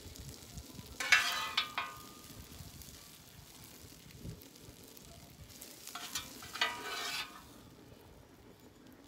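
Metal spatula scraping across a hot steel flat-top griddle, scooping cooked fried rice onto a plate: one bout of scraping about a second in and another around six seconds in.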